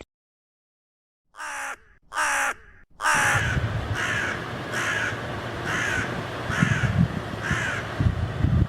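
A bird calling: after about a second of silence come two calls, then a run of evenly spaced calls, a little under one a second, over a steady low background rumble.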